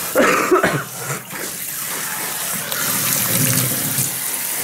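Kitchen tap running into a stainless-steel sink as someone rinses at it, with a short cough just after the start.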